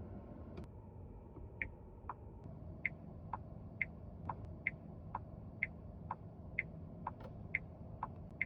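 Car turn-signal indicator ticking: clicks that alternate between a higher and a lower pitch, about one tick-tock pair a second, starting about a second and a half in, over a low steady hum.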